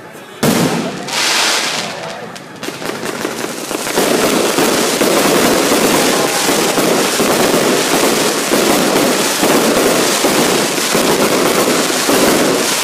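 Fireworks display: a sudden loud bang about half a second in, then a hissing burst. From about four seconds on comes a dense, unbroken barrage of bangs and crackling.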